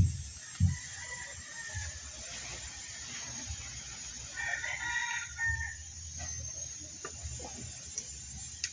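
A rooster crowing once, about four and a half seconds in, in a call lasting over a second, with a fainter call near two seconds in. A couple of dull thumps near the start are the loudest sounds.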